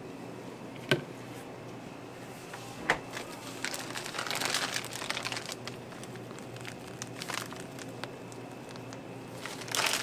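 Plastic piping bag crinkling and crackling as it is handled and squeezed to pipe whipped cream onto a crepe. Two sharp knocks, about one second and three seconds in.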